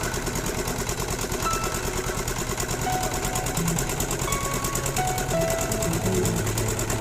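Fishing boat's inboard engine running steadily, a fast, even mechanical clatter.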